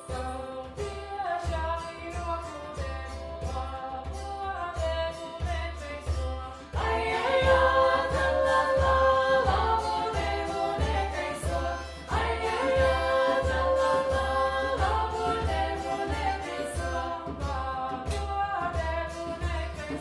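Latvian folk-song arrangement sung by a women's folk group in several voices over a steady drum beat. The singing becomes louder about seven seconds in.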